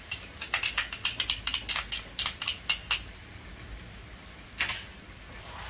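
Steel slotted spatula clinking and scraping as ginger-garlic paste is scraped off it and out of a small glass bowl into a stainless-steel kadai: a quick irregular run of sharp clicks for about three seconds, then quieter.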